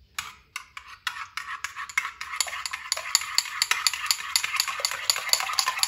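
Metal spoon beating yogurt thinned with a little water and mixed with mint and green-chilli paste in a ceramic bowl. Quick, regular clicks of the spoon against the bowl, about five a second, come over a wet slapping of the yogurt, settling into a steady rhythm after the first second.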